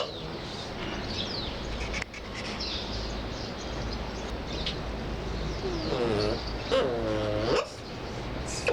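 Cape clawless otters calling: faint high squeaks, then from about six seconds in a few louder wavering, whining calls, over a steady low background rumble.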